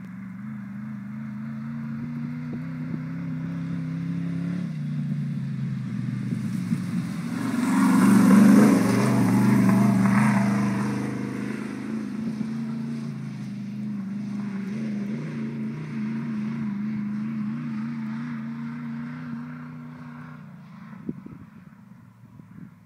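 Tube-chassis Bronco's engine running at a steady, high speed, growing louder as the truck comes closest about eight seconds in, then fading as it drives away near the end.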